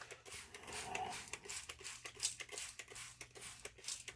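Rapid, irregular scratchy rubbing and light clicks of a circuit board being scrubbed and wiped clean with isopropyl alcohol.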